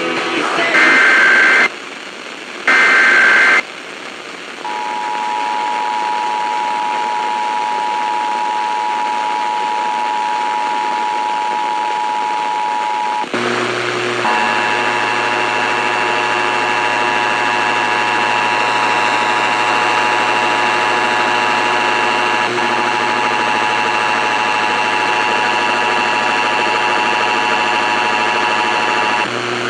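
Emergency Alert System broadcast tones: two short bursts of SAME digital data tones, the end-of-message code after a test, then the EAS two-tone attention signal held steady for about eight seconds. About thirteen seconds in, it cuts to a second recording of the attention signal, rougher, with extra tones and a low hum, lasting about fifteen seconds.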